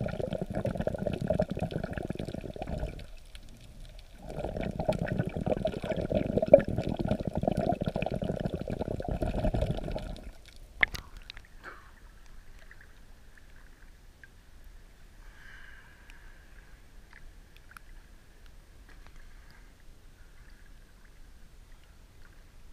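Sea water moving around a camera held just under the surface: a loud, dense, low churning noise that briefly drops off about three seconds in. About ten seconds in the camera breaks the surface with a few sharp splashing clicks, and after that only faint water lapping and hiss remain.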